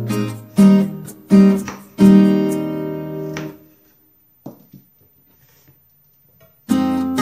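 Background music of plucked acoustic guitar, the notes ringing and fading out. The music drops away a little past halfway, leaving a gap of near silence with a couple of faint clicks. The guitar comes back in near the end.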